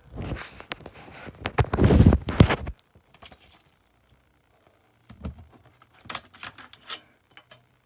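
A CD booklet being handled close to the microphone: loud paper rustling and rubbing for the first two or three seconds, then a few lighter clicks and taps about five seconds in.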